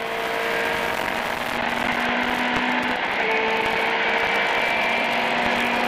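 Millington-engined Ford Escort Mk2 rally car at speed on a straight, heard from inside the cabin: a steady engine note over road and tyre noise.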